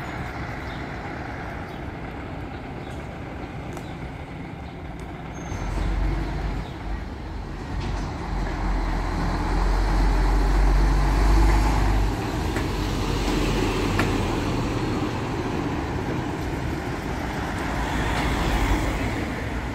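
Diesel engine of an articulated lorry hauling a large fairground trailer as it drives slowly past close by. A deep rumble builds about six seconds in, is loudest around ten to twelve seconds, then eases into steady engine and tyre noise.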